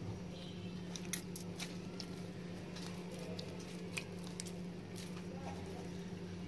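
Oiled msemen dough squishing softly as hands pinch off small pieces and shape them into balls, with a few light clicks.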